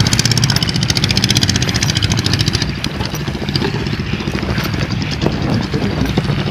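A small engine running nearby with a rapid, even beat that grows fainter about two and a half seconds in.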